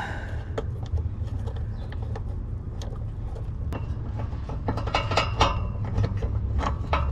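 Ratchet and socket on a bolt: metallic clicking and rattling in short bursts about five seconds in and again near the end, over a steady low hum.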